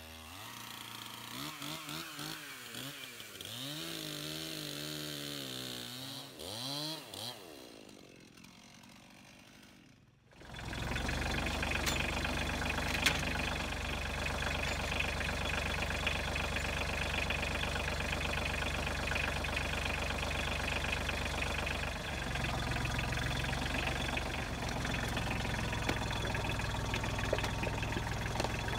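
Chainsaw engine revving up and down for the first several seconds, then dying away. After a sudden change, a Kioti compact tractor's diesel engine runs steadily, its note rising about two-thirds of the way through.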